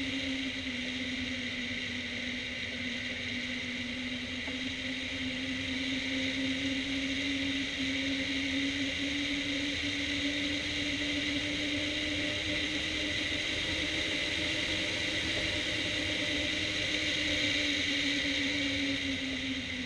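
Hang glider in flight: wind rushing past the wing-mounted camera, with a steady low hum that drifts slowly up and down in pitch and falls away near the end.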